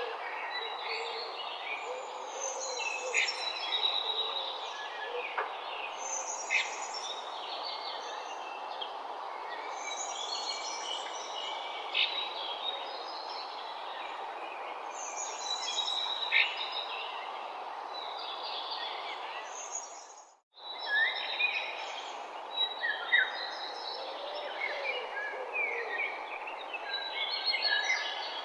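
Morning bird chorus: several birds chirping and trilling over a steady background rush. About two-thirds of the way through, everything drops out for a moment and comes straight back, as at a splice or loop point in the recording.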